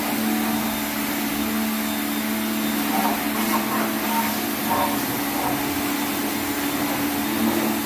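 Pressure washer running steadily: a constant motor hum with an even hiss over it.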